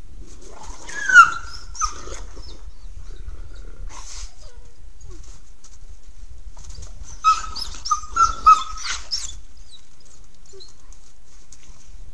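Wolf whining: a loud whine falling in pitch about a second in, a shorter one just after, then a run of four or five short high whines starting about seven seconds in.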